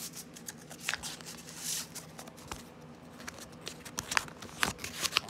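A sheet of lined notebook paper being folded and creased by hand: scattered crinkles and rustles with sharp little paper clicks, and a couple of brief swishes.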